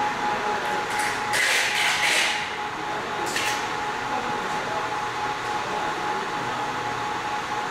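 Steady whir of a ZM-R720 BGA rework station's hot-air blower during a heating cycle, with a thin steady whine under it. Two short hisses come about one and a half and three and a half seconds in.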